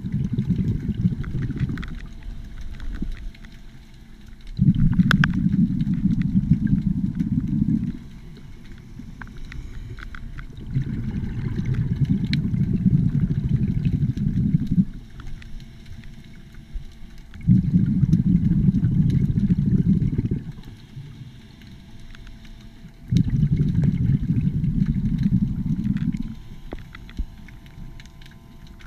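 A scuba diver's exhaled bubbles rumbling out of the regulator, recorded underwater: a burst of about three seconds every five to six seconds, one per breath, with quieter inhalation gaps between.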